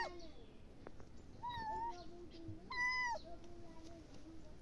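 Kittens meowing: two high-pitched meows about a second and a half apart, with a fainter, lower mew drawn out between and after them.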